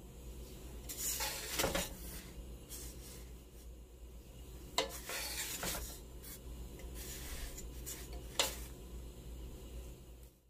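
Kitchen utensils scraping and clinking against dishes, with a few sharp clinks, over a low steady hum.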